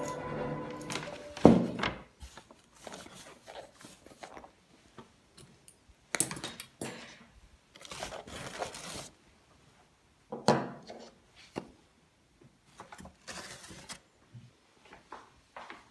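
Household handling sounds: irregular taps and knocks, two louder thumps, and a few short bursts of rustling or crinkling, like packaging being handled.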